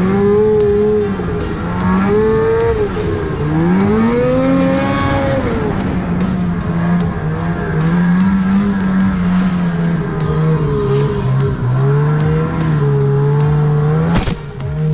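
Snowmobile engine running hard under the rider's throttle, its pitch rising and falling every second or two, with a single sharp knock near the end.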